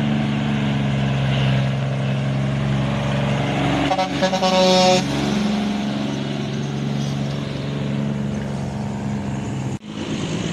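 Diesel engine of an American conventional semi truck running under load as the rig passes close by. An air horn blasts once about four seconds in and sounds for about a second.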